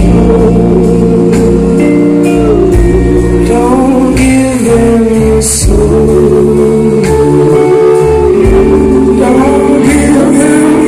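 Rock band playing loud live music: a male singer holds long notes over electric guitar, bass and drums, with cymbal crashes.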